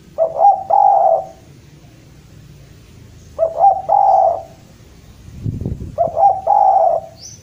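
Spotted dove cooing: three phrases about three seconds apart, each a couple of quick short notes running into a longer low coo. This is the call a male uses to challenge a rival.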